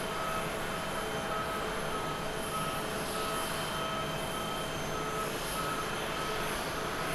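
Boeing 787 Dreamliner jet engines at low approach power as the airliner comes in to land with gear down: a steady rush with a whine. A faint high beep repeats about every half second.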